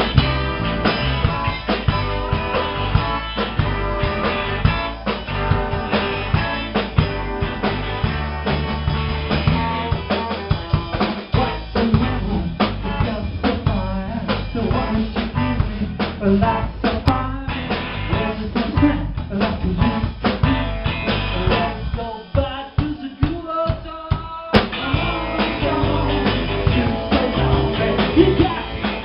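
Live rock band playing an instrumental passage, with a drum kit prominent: snare rimshots and bass drum over guitar and bass. About 22 seconds in the bass and kick drop away for a couple of seconds, then the full band crashes back in.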